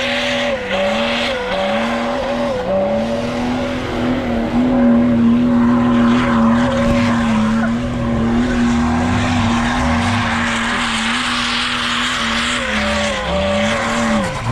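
Off-road 4x4's engine held at high revs under load, over a steady hiss. The revs dip briefly three times in the first few seconds, hold steady through the middle, and dip again near the end.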